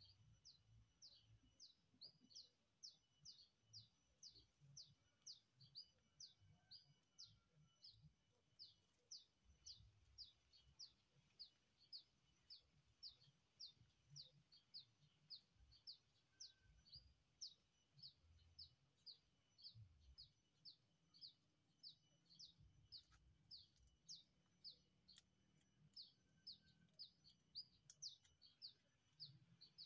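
A bird repeating a short, high chirp that falls in pitch, about three times a second, in a steady unbroken run.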